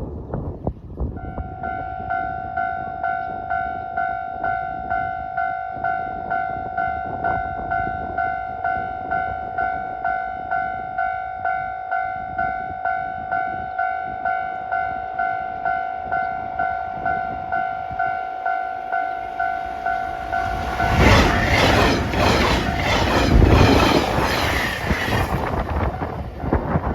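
Level-crossing alarm ringing in an even, repeated ding. About 21 seconds in, a train passes at speed through the crossing: a loud rush with wheels clattering over the rail joints that drowns the bell for about five seconds.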